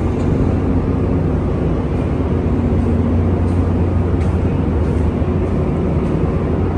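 Car ferry's engine machinery droning steadily, a loud constant low hum under a broad rumble.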